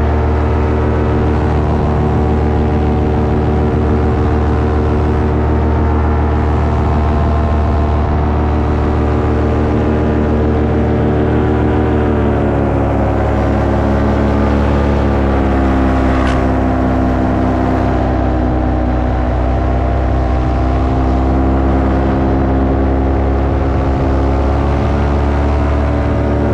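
Paramotor engine and propeller running steadily in flight. Partway through, the pitch wavers up and down for several seconds, then settles back to a steady drone.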